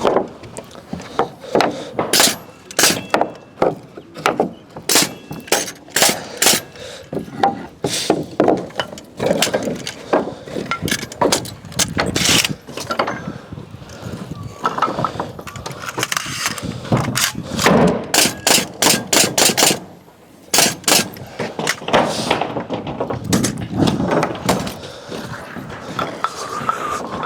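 Timber wall framing: many sharp nailing strikes at an irregular pace, some coming in quick runs of several in a row.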